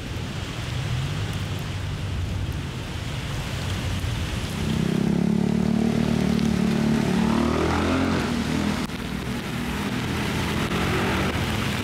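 Street traffic on rain-soaked roads: tyres hiss on the wet tarmac. About four and a half seconds in, a nearby vehicle's engine comes in and gets louder.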